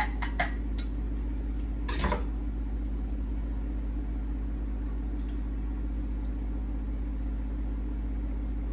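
A few light clinks and taps of a glass espresso cup and spoon in the first couple of seconds, the last about two seconds in. After that only a steady low hum remains.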